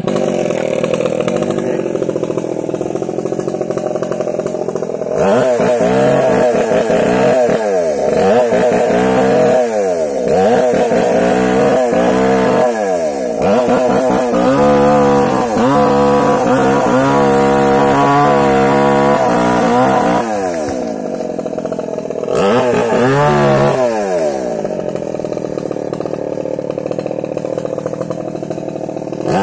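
Small two-stroke chainsaw running hard, its engine pitch repeatedly dropping and rising again as the chain is worked into the trunk of a large tree, with a brief easing off about two-thirds of the way through.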